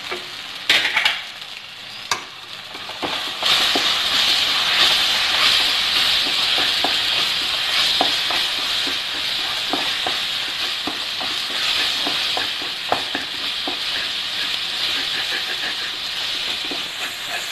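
Sliced onions and ground spices frying in oil in a non-stick pan while a spatula stirs them, with the sizzle and scattered light taps and scrapes of the spatula against the pan. The sizzle grows louder about three and a half seconds in, once the stirring starts in earnest.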